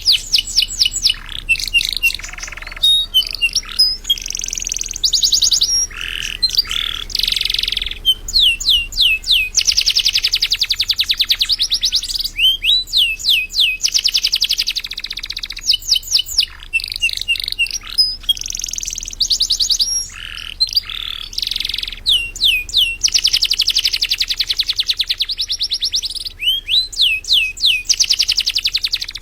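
Domestic canary singing continuously: long fast trills of rapidly repeated high notes alternating with sweeping slurred whistles and buzzy rolls, the song running almost without pause.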